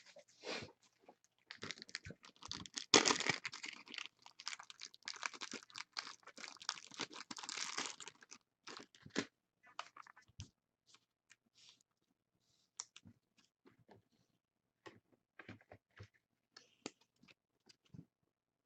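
Plastic card sleeves being pulled from their pack and handled: dense crinkling and rustling for several seconds, then scattered soft rustles and clicks.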